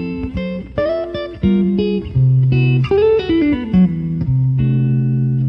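Guitar music: plucked notes and short runs over a held low note, with a quick descending run a little after three seconds, ending on a chord that rings out.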